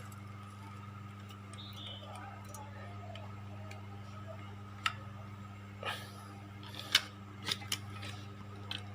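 Japanese transformer arc welder humming steadily while switched on and idle, with a few sharp clicks and taps between about five and eight seconds in as a 3.2 mm electrode is changed in the holder.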